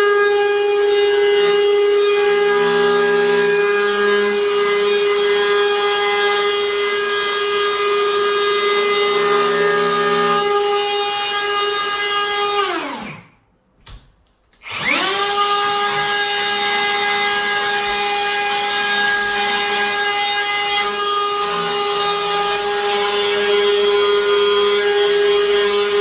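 HiKOKI cordless router running at full speed, plunge-cutting a deep lock mortice into a door edge with a long straight cutter. About halfway through it winds down to a stop, then starts again and spins back up to speed.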